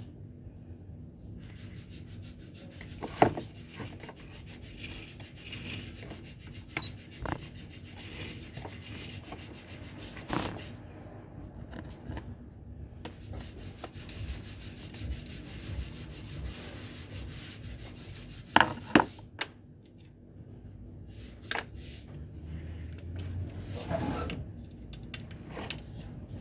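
Hand work on a disassembled angle grinder: rubbing and scraping of parts, with a few sharp knocks, the loudest two close together about two-thirds of the way through.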